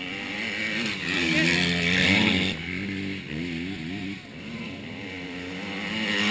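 Motocross dirt bikes racing on a dirt track, engines revving up and dropping back with each gear change. Louder about a second in, and building again near the end as a bike comes close.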